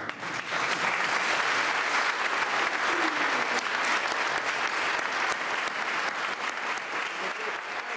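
Audience applauding, a dense patter of many hands clapping that builds about half a second in and thins a little near the end.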